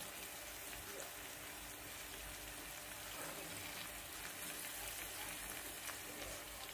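Sliced shallots, garlic and spices frying in oil in a nonstick wok: a steady, soft sizzle with faint scattered crackles.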